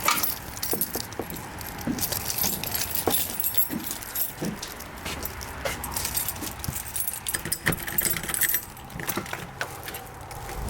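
Irregular metallic jingling and clicking over a low background rumble.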